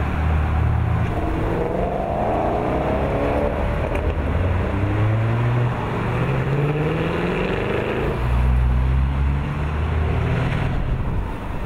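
Sports cars driving past one after another with a low engine rumble; twice the engine note climbs in pitch as a car accelerates by.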